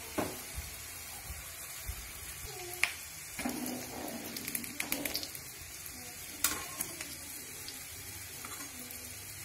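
Litti dough balls deep-frying in hot oil in a kadhai, a steady sizzle and bubbling. A few sharp metal clinks, the loudest about 3 s and 6.5 s in, come as tongs and a slotted spoon touch the pan.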